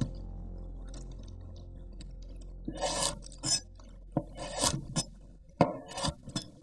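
Chef's knife cutting dried red chilies on a wooden cutting board: about ten crisp, irregular cuts with a dry crackle, starting a little under three seconds in. Before them, faint crackling as the stems are pulled off the dry chilies.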